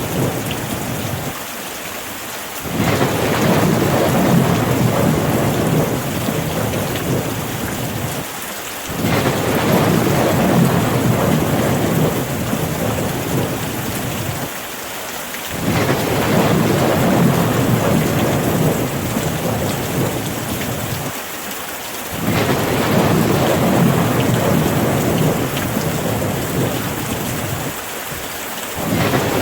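Steady rain with a low rolling rumble of thunder underneath. The rumble swells and then drops out briefly, about every six and a half seconds, in a regular cycle.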